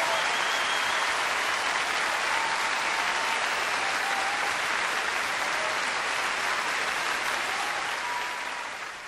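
Large concert audience applauding, a dense steady clapping that fades out near the end.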